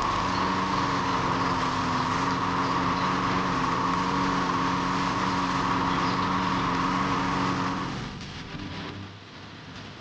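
A small motor running at a steady speed with an even whine, stopping about eight seconds in.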